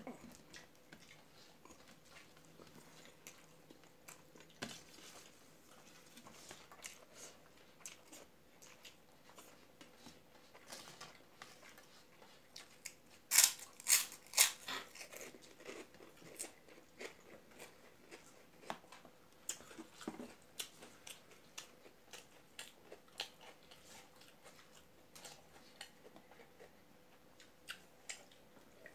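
Close-up eating sounds: soft chewing and scattered small clicks, then, about halfway through, a handful of loud sharp crunches as a piece of fried papad is bitten and chewed.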